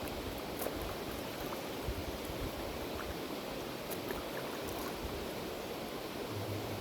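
River water flowing, a steady rushing hiss.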